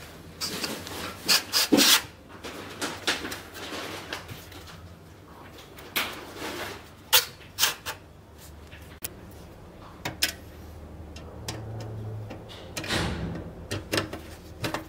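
A steel saw blade and its plastic handle being fitted together by hand on a workbench: irregular knocks, clicks and scrapes of metal against handle and bench. A few sharper clicks near the end as a screw is driven into the handle.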